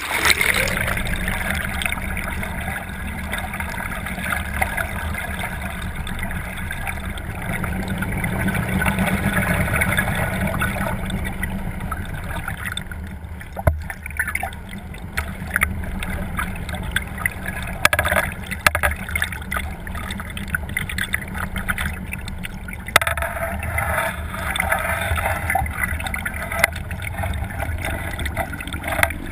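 Motorboat running steadily, with water rushing and crackling against the camera's waterproof housing held out on a net pole. Occasional sharp knocks, one about 14 seconds in.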